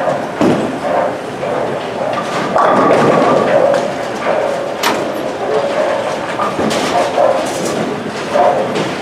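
Bowling alley din: balls rolling and pins clattering on the lanes, with a sharp clack about five seconds in.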